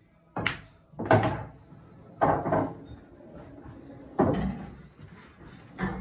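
Pool balls on a pub pool table: a cue strike and balls knocking together. About five sharp knocks over six seconds, each dying away quickly.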